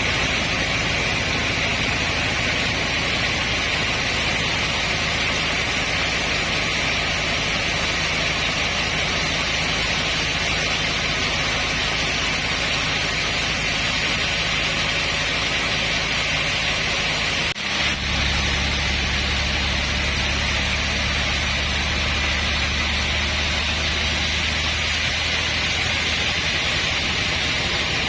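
Sawmill machinery running steadily: a constant hissing whir over a low engine hum. About 17 seconds in, the sound breaks briefly, and after that the deeper hum is louder.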